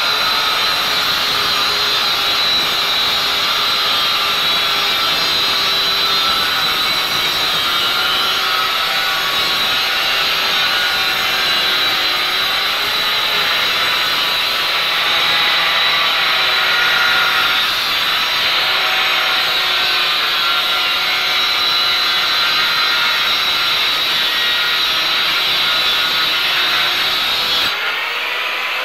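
Handheld electric disc cutter grinding a groove into a plastered masonry wall: a loud, continuous whine whose pitch wavers as the disc bites. Near the end the tone shifts higher and the low rumble drops away.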